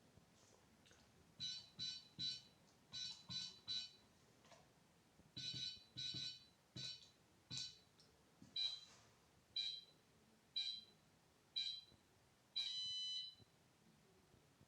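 Electronic beeper of an airsoft timer-bomb prop beeping: quick groups of short high beeps, then single beeps about once a second, ending with one longer beep.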